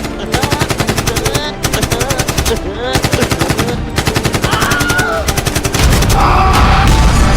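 Background music with a fast, rattling beat and short gliding high notes, growing louder and fuller about six seconds in.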